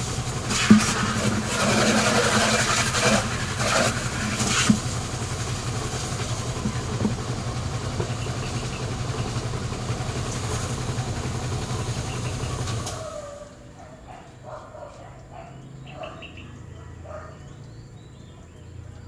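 An engine runs steadily, with the hiss and spatter of a hose's water jet over it in the first seconds, then cuts off suddenly about two-thirds of the way through. Faint chirps follow.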